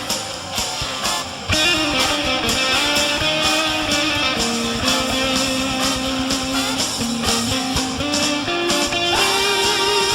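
Instrumental band jam led by guitars, strummed chords under a held, bending melody line; the band gets louder about a second and a half in.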